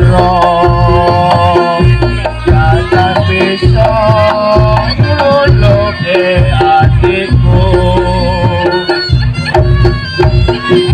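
Reog Ponorogo accompaniment music: quick hand-drum strokes under a loud, held melody line of long notes that step between pitches every second or two.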